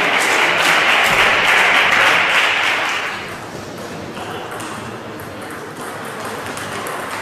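Spectators applauding after a table tennis point, dying away about three seconds in. Then the sharp clicks of the celluloid ball off bats and table as the next rally is played.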